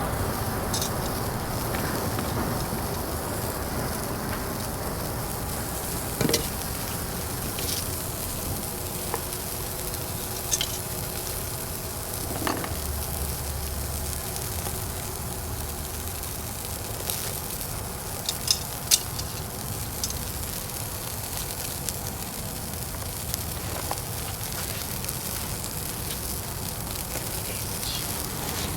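Food sizzling on a barbecue grill over the fire, a steady hiss broken now and then by short sharp pops and crackles.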